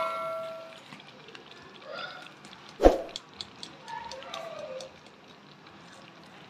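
A metallic ring dies away over the first second. A single sharp knock comes about three seconds in, with faint distant voices around it.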